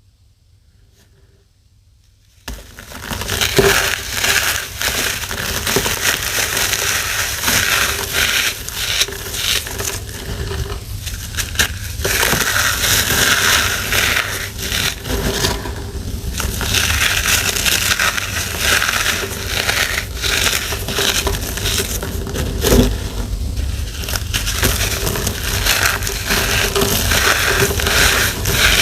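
Crunchy blocks of pressed powder being crushed: dense, continuous crunching that starts suddenly about two and a half seconds in and keeps going.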